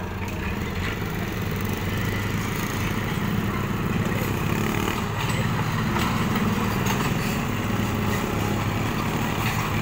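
Heavy truck's engine running steadily, a low even rumble that grows a little louder through the middle.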